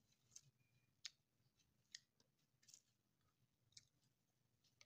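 Near silence with faint, sharp clicks about once a second: the small sounds of a person eating bread by hand.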